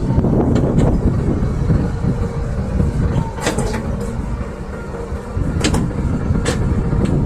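Hydraulic excavator's diesel engine running steadily under load, with several sharp clanks from the machine working, the loudest bunched about three and a half, five and a half and six and a half seconds in.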